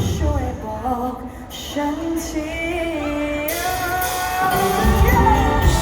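A woman singing a Thai pop song live with a band. The bass and drums drop out for about four seconds, leaving the voice over light accompaniment, with a held note near the middle, and the full band comes back in near the end.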